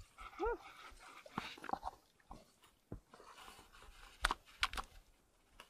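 Shallow seawater sloshing and splashing as hands work a fishing net, with several sharp clicks and knocks, the loudest a little past four seconds in. A short whine that rises and falls comes about half a second in.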